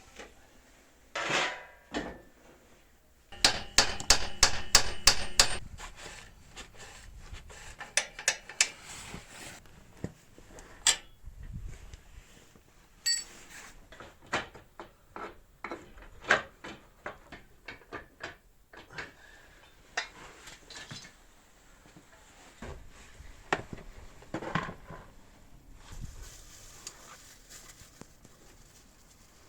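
Hand tools clinking and knocking on metal engine parts, with a quick run of about eight hammer-like taps a few seconds in, then scattered clicks and clanks.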